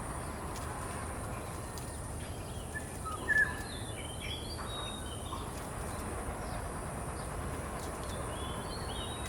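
Short bird chirps: a loud one about three seconds in, a cluster around four to five seconds, and more near the end, over a steady background noise.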